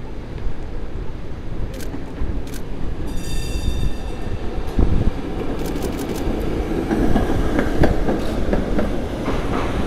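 Heritage streetcar running along its rails, its rumble and clatter growing louder as it passes close by in the last few seconds, with a brief high squeal about three seconds in. A few sharp DSLR shutter clicks, with a quick run of them about six seconds in.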